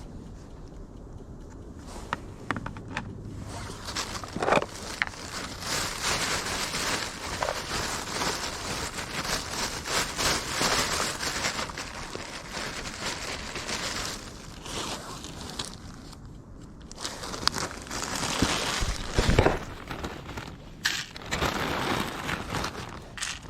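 Irregular rustling and crinkling with scattered sharp clicks and crackles, coming and going in louder stretches: handling noise.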